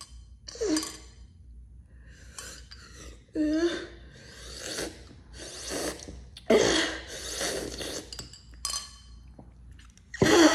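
Slurping a drink through a metal straw from a glass in a series of separate sips, with a few light clinks of the straw against the glass.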